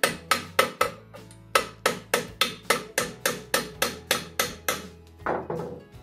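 Background music: an even run of sharp plucked or struck notes, about four a second, over a steady low tone, with a short break about a second in and a longer ringing note near the end.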